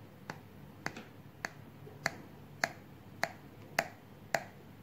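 A knife clicking against the bottom of a glass baking dish as it cuts down through a chilled, chocolate-glazed sheet cake: eight sharp clicks in a steady rhythm, about two a second.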